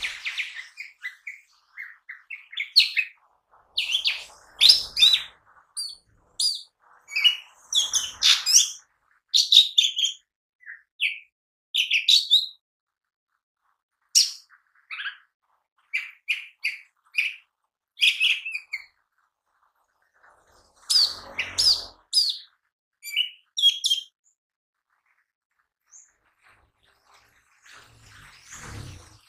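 Lesser green leafbird ('cucak ijo mini') singing. It gives bursts of quick, varied chirps and whistled notes, broken by pauses of a second or two.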